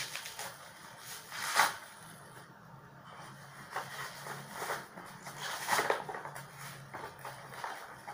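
Plastic wrapping crinkling and rustling in irregular bursts as it is pulled off a beer can, the loudest rustle about a second and a half in.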